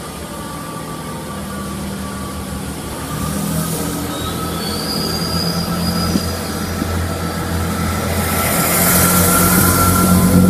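Class 158 diesel multiple unit pulling slowly past along the platform: steady diesel engine hum with thin, high wheel squeal from the rails. The sound grows louder toward the end as a rushing hiss builds.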